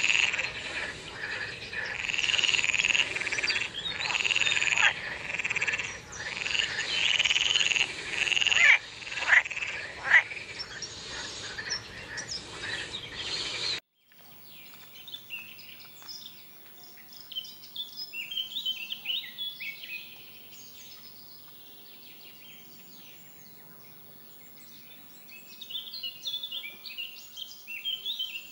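A loud chorus of frogs croaking, many calls overlapping. About halfway it cuts off suddenly to a much quieter scatter of short, high calls.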